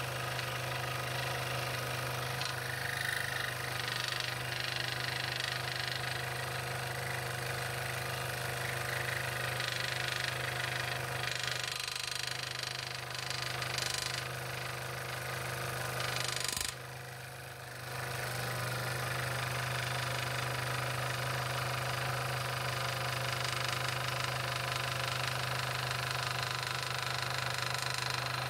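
Scroll saw running steadily as its number 5 blade cuts a ring out of a wooden blank, a steady machine hum throughout. The level drops briefly a little past the middle.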